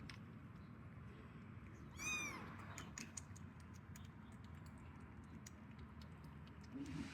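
A kitten gives one short, high-pitched meow that rises and falls, about two seconds in, among faint scattered clicks.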